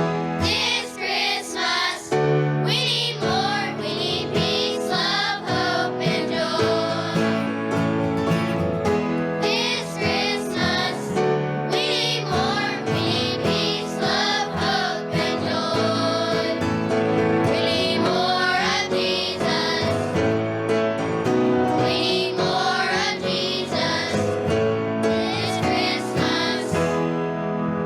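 A choir singing a Christmas song with instrumental accompaniment.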